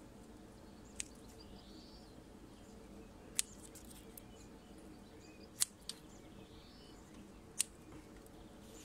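Scissors snipping off orchid leaves: four sharp clicks a couple of seconds apart.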